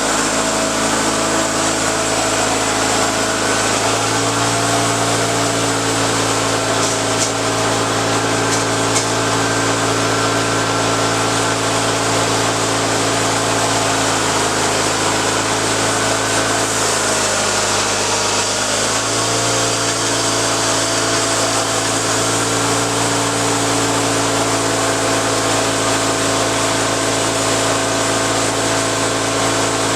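Small gasoline engine running steadily under load. Its pitch sags briefly about halfway through, then recovers.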